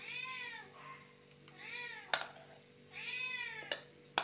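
A domestic cat meowing three times, each call rising and then falling in pitch. Sharp metallic clinks of a steel spoon against a steel bowl come about two seconds in and again near the end; the clink about two seconds in is the loudest sound.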